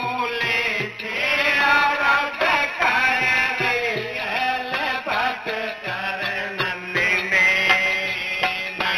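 Live kirtan music from a devotional singing group: a wavering melody over a steady low drone, with regular hand-drum beats.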